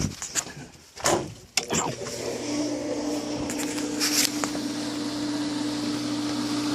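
A few sharp knocks and clicks, then about two seconds in a pool pump motor starts up and runs with a steady hum and hiss.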